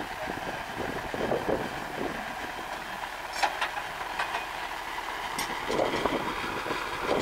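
MTZ-80 tractor's four-cylinder diesel engine running steadily under load while pulling a mounted plough through the soil, with a couple of short sharp clicks past the middle.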